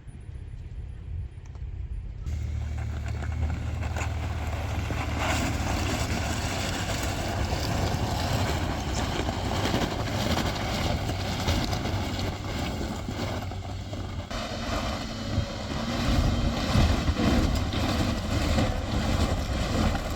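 Vehicle engines running under load as a van stuck in deep stones is towed out backwards by a truck, starting about two seconds in and getting louder and rougher near the end.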